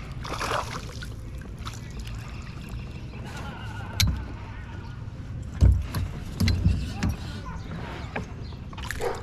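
Hollow knocks and thumps on a small fishing boat's hull, the loudest a little past halfway, over a steady low rumble.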